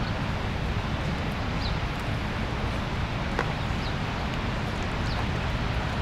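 The steady rushing roar of the Rhine Falls' water pouring over the rocks, with a few short, high chirps on top.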